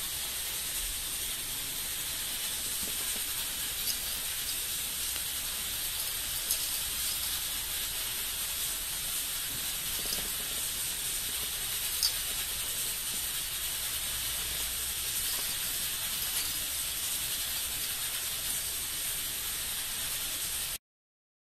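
Steady high-pitched hiss of recording noise, with a few faint clicks, cutting off abruptly to silence near the end.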